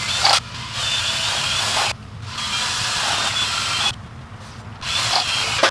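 Drill spinning a new valve against its seat in a BMW N62 V8 cylinder head, run in three bursts of about a second or so each. This is the valve being lapped in with paste so it beds into the seat and closes properly.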